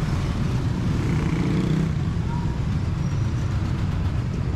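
Street traffic: a steady low rumble of vehicle engines and tyres on the road.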